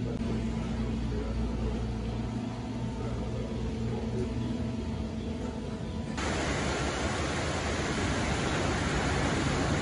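A steady low hum of a few even tones from a shop's refrigerated freezer cases. About six seconds in, a sudden cut brings the steady rush of surf breaking on a sandy beach.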